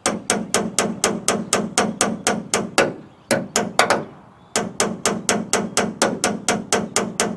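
Slide hammer pulling a dent out of a pickup bed's crumpled taillight corner: the weight is slammed against its stop in quick repeated metal-on-metal clanks, about four a second, each ringing briefly. The strikes pause twice, briefly, around the middle.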